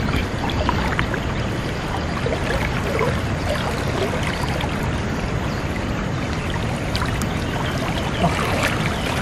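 River water running and sloshing steadily, with small splashes and knocks as hands work a cast net through the shallow water.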